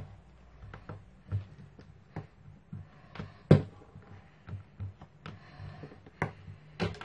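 Plastic rolling pin and hands knocking and tapping on a work board while white modeling paste is rolled out, with a faint hiss of rolling. The sharpest knock comes about three and a half seconds in, with two more near the end.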